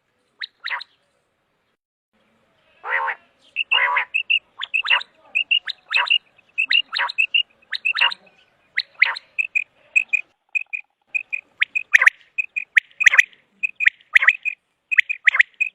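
Common quail calling over and over, each phrase a sharp note followed by two quick shorter ones, about one phrase a second. The calling stops for about two seconds soon after the start, then resumes.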